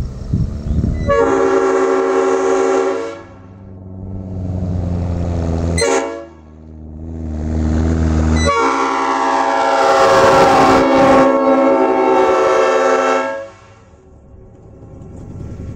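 Leslie S-3B, Leslie S-3P and Nathan Airchime P5 cast locomotive air horns, mounted on a truck and sounding together as one chord. There are three blasts: one of about two seconds, a shorter one that swells and cuts off sharply, then a long one of about five seconds. The truck's engine runs underneath.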